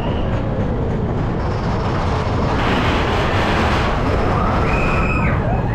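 Mine-train roller coaster running along its track: a loud, steady rumble of wheels on rail mixed with rushing air. A brief high tone sounds about five seconds in.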